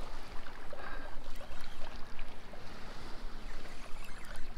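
Shallow sea water lapping and sloshing close to the microphone, with a few faint ticks.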